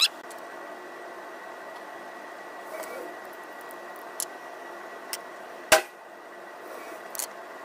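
Steady background hum with a few faint clicks of handling the stripped pistol, and about two-thirds of the way in a single sharp gunshot.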